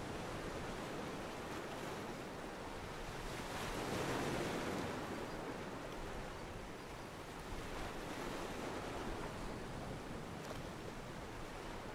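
Ocean water washing against a pier, a steady wash of waves that swells about four seconds in.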